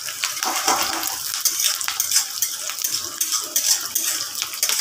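Sliced onions and dried red chillies sizzling in hot mustard oil in a steel kadai, with a spatula scraping and clinking against the pan as they are stirred.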